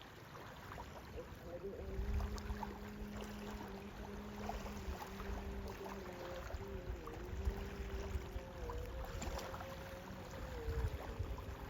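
Distant call to prayer (azaan): a man's voice holding long notes that bend slowly up and down, with a lower steady tone held for several seconds in the middle. Low rumble of the sea lies underneath.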